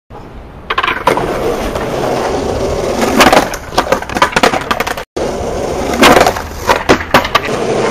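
Skateboard wheels rolling over rough asphalt, with sharp clacks of the tail popping and the deck hitting the ground as flatground tricks are tried: a loud cluster about three seconds in, scattered clatter after it, and another loud clack around six seconds.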